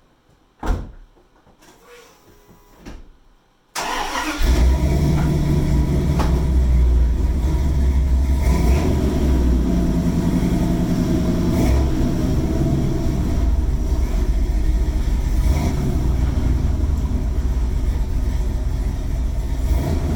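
A thud like a car door shutting, then about four seconds in a vehicle engine starts and runs steadily.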